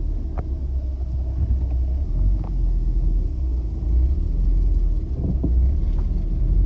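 Car moving slowly, heard from inside the cabin: a steady deep rumble with little else above it.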